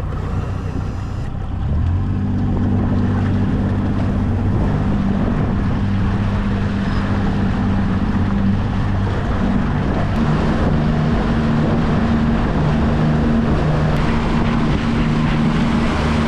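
Motorboat engine running steadily under a rush of water and wind noise, its hum getting louder about two seconds in.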